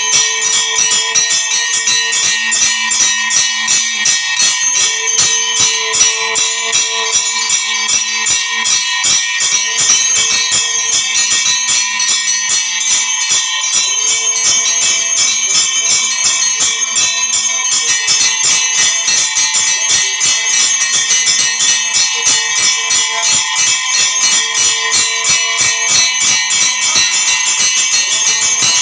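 Bells ringing rapidly and without a break, with a fast jingling, rattling beat, over a phrase of held low notes that repeats every few seconds.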